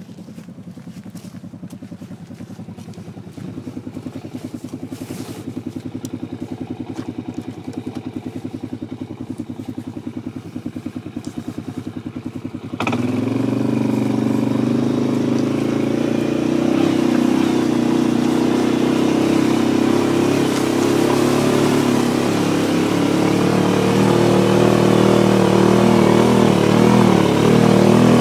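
ATV engine running and drawing nearer, growing louder. About 13 seconds in the sound jumps suddenly louder and fuller, and it stays close and steady while slowly rising in level toward the end.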